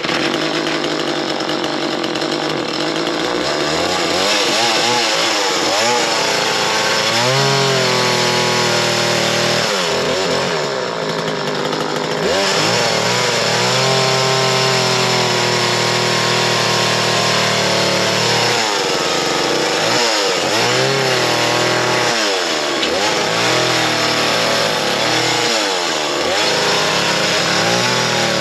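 Small chainsaw cutting through the trunk of a fallen tree, its pitch sagging under load and picking back up again and again.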